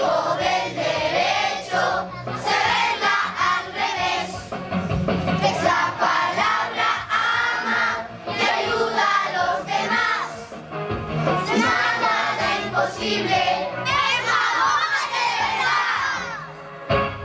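A group of schoolchildren singing a song together as a choir.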